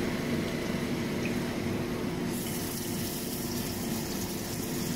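Fish frying in hot oil in a frying pan: a steady sizzling hiss that turns brighter about two seconds in, over a low steady hum.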